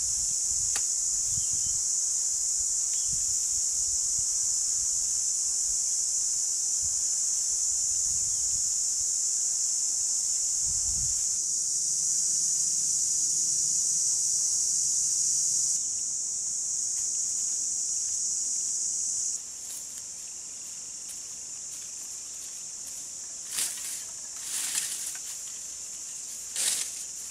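Insects droning steadily in a high-pitched, unbroken chorus. Near the end, a few short rustling scrapes come from a long-handled tool working in brush.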